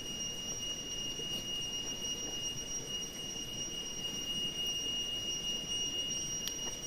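A steady high-pitched whine over a low, even rushing background, with a single sharp click near the end.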